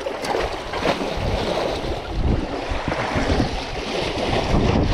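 Steady rushing of wind and sea water, with wind gusting irregularly on the microphone.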